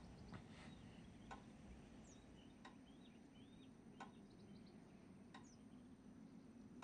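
Near silence: quiet room tone with a faint tick repeating about every second and a third, and faint bird chirps.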